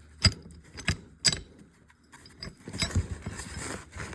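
Small metal tools and parts clinking: three sharp clicks in the first second and a half, then a short rattle of metal about three seconds in.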